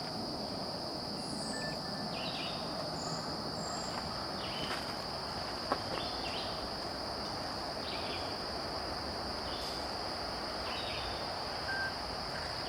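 Outdoor insect chorus in late summer: a steady high-pitched trill, with short chirps repeating every second or two, over a low steady background noise.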